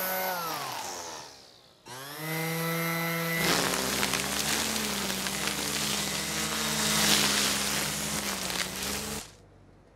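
Corded electric string trimmer motor running, then spinning down with falling pitch. About two seconds in it starts again, and from about three and a half seconds it cuts into dense weeds, with a loud rushing noise over the motor's whine. It switches off near the end.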